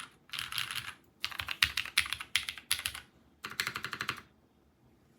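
Typing in quick bursts on a dnworks Noodle.Zip mechanical keyboard with Krytox-lubed Cherry MX Purple switches on an aluminium plate and GMK keycaps. The typing stops about four seconds in.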